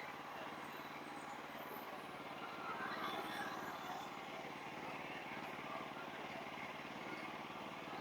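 Sawmill engine running steadily at an even, low hum, with a slight swell about three seconds in.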